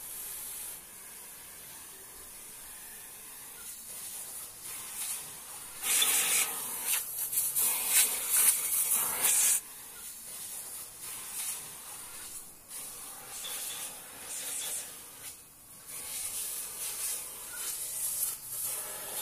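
Compressed air hissing from a hose-fed pneumatic tool: steady at first, loudest for a few seconds near the middle, then in short bursts.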